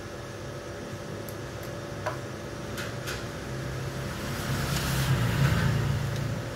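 Hands handling a Ricoh 9001 copier's fuser oil web unit: a few light clicks, then a rustling, rubbing noise that swells about four to six seconds in, over a steady background hum.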